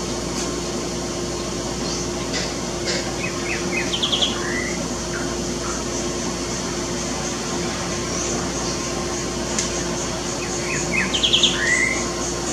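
Green-winged saltator singing the same short phrase twice, about seven seconds apart: a few quick notes, a fast trill and a slurred whistle. A steady low hum and faint high chirping run underneath.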